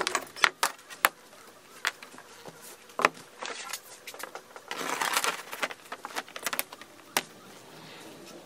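Handling noises as a long aluminium straightedge and small metal tools are set down on a leather hide lying on a wooden work table: scattered sharp taps and clicks, with a short rustling slide about five seconds in.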